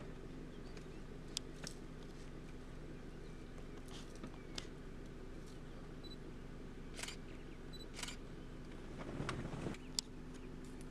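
Vehicle engine idling steadily with a low hum, with a scattering of sharp clicks and snaps through it and a brief rustle shortly before the end.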